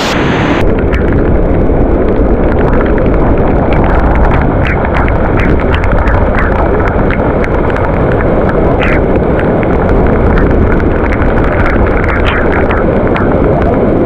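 Steady, loud rush of a monsoon-swollen waterfall, with many small splashes and spatters through it.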